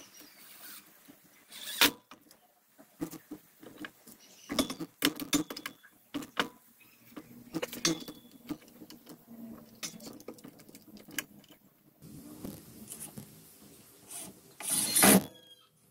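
Scattered knocks and clatter of tools and pieces of wood being handled on a workbench, with a short burst of a cordless driver running a screw into the wood near the end.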